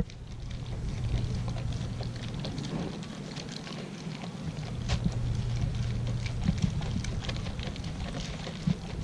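Dog eating raw meat out of a plastic basket: irregular wet licking, smacking and chewing clicks, over a steady low hum.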